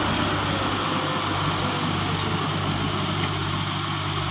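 Massey Ferguson 385 tractor's diesel engine running steadily as it hauls a sand-loaded trolley slowly forward.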